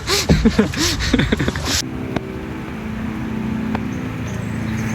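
A person's voice for the first couple of seconds, then a steady motor drone at an even pitch.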